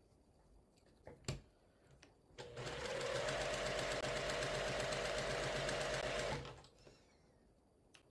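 Sewing machine stitching a seam for about four seconds at a steady, fast stitch rate, then stopping. A single click comes shortly before it starts.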